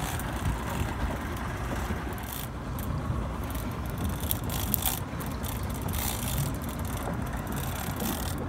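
Steady low rumble of wind and water on an offshore boat, with a few light clicks and rattles between about two and five seconds in.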